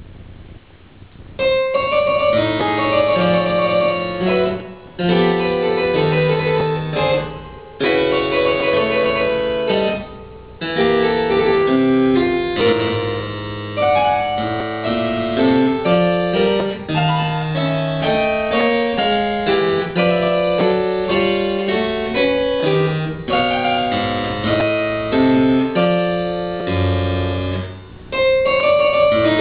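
Solo harpsichord playing a lively folk-dance piece in short phrases with brief breaks between them. The music starts about a second in, after a faint hiss.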